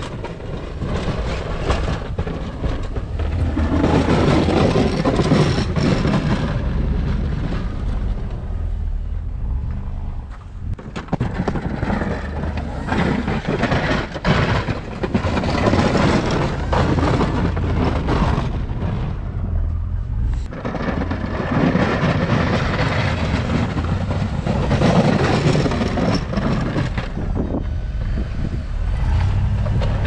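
Ford F-250 pickup with a Fisher snowplow pushing deep snow, its engine running under a constant low rumble and the blade scraping and shoving snow across the pavement. The noise swells and falls in several long surges as the truck makes its passes.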